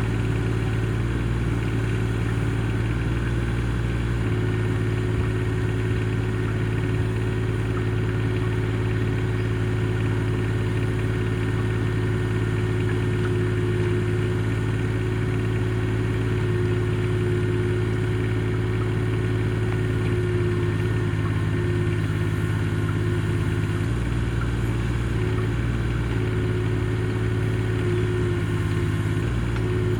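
Mini excavator's engine running steadily, its pitch shifting slightly about four seconds in and again near the end.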